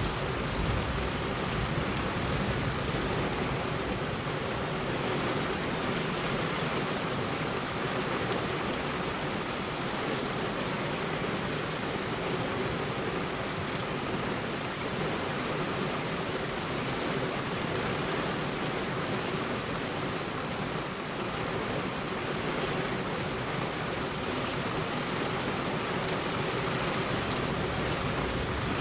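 Heavy rain falling steadily on a road: a dense, even hiss with scattered splashes of single drops.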